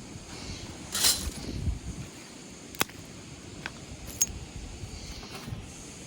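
Small hard objects clinking as they are handled, with a short rustling clatter about a second in and three sharp clicks after it, over a low steady rumble of wind or surf.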